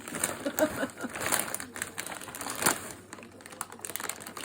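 Plastic snack packages rustling and crinkling as they are handled and lifted out of a box, in quick irregular crackles with one louder crackle a little past halfway.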